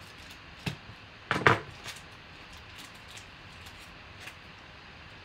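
Sports cards in hard plastic cases handled and set down on a table: a few clacks and taps, the loudest cluster about a second and a half in, with lighter ticks after.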